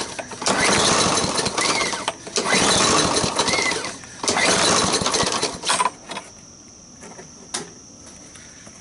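125 cc Briggs & Stratton push-mower engine pull-started on a shot of starting fluid: three bursts of about a second and a half each, firing briefly and dying each time, the last ending about six seconds in. The engine is starved of fuel because of a carburetor problem.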